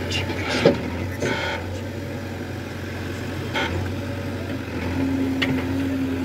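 JCB backhoe loader's diesel engine running steadily while the backhoe arm digs in wet mud, with a few short knocks and clanks, the loudest about a second in, and a steady higher hum joining about five seconds in.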